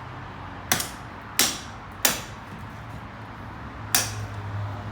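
A competition chopper knife of 5160 carbon steel chopping into wood: four sharp chops. The first three come about two-thirds of a second apart, and the fourth follows about two seconds later.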